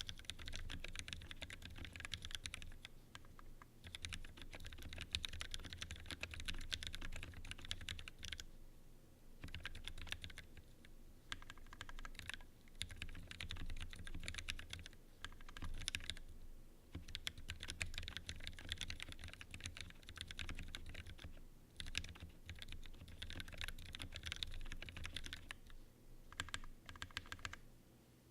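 Typing on a TGR-910 RE mechanical keyboard with a polycarbonate case and vintage Cherry MX Black linear switches on 67 g springs: fast runs of keystrokes broken by short pauses every few seconds, over a steady low hum.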